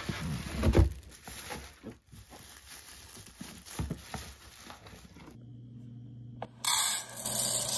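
Plastic wrap crinkling and a cardboard box scraping as a plastic rice dispenser is lifted out, with a thump about a second in. Then, with a low hum in the background, rice pours from the dispenser into its cup when the button is pressed, a loud rush near the end.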